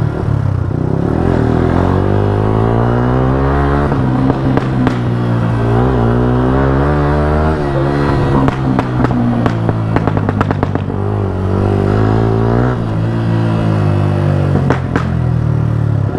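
Yamaha R15 S single-cylinder motorcycle engine running through an aftermarket exhaust with a fire-shot kit, its note rising and falling as it is revved under way. A rapid run of exhaust pops and crackles comes about halfway through, with a shorter burst near the end.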